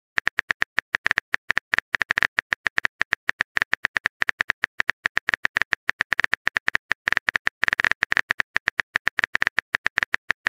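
Phone keyboard typing clicks: a rapid, uneven run of short taps, several a second, as a text message is typed out key by key.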